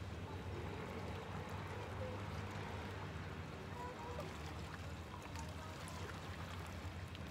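Small waves lapping and trickling over shoreline rocks, over a steady low motor hum from a distant boat, with a few short chirps scattered through.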